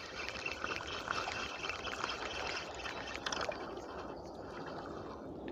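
River water running and trickling in a steady hiss, with faint scattered ticks; the higher part of the hiss thins out about four seconds in.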